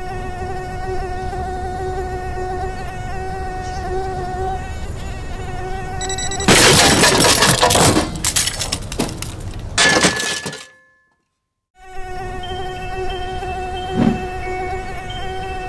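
Drone propellers humming steadily at one pitch. About six and a half seconds in, a sudden loud burst of noise lasts about four seconds and stops dead; after a second of silence the propeller hum starts again, with a soft thump about two seconds later.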